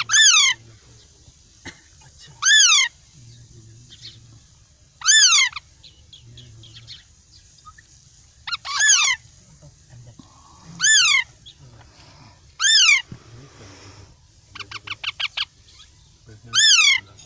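Alexandrine parakeet chick giving loud, harsh hungry begging calls, about seven of them, each about half a second long and falling in pitch, several led in by a quick stuttering run of short notes.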